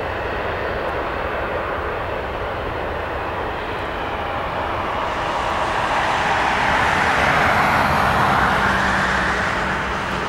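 Airbus A320-200's CFM56 turbofan engines at climb-out power after takeoff, a steady jet roar heard from the ground. It swells louder about halfway through and eases slightly near the end.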